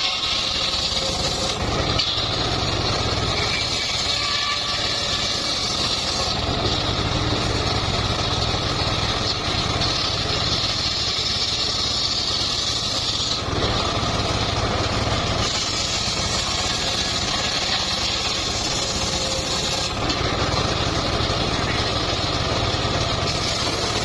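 Engine-driven saw running steadily while sawing mahogany wood, its sound changing abruptly several times.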